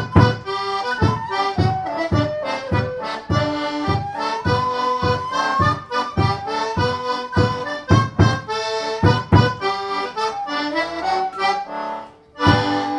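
One-row melodeon playing a lively tune, with the melody over a steady bass-and-chord beat about twice a second. Near the end there is a brief break, then a long held chord.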